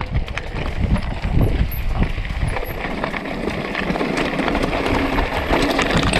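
Mountain bike rolling down a loose, rocky singletrack: tyres crunching over stones and the bike rattling with a rapid, irregular clatter of small knocks, over a low rumble of wind on the microphone.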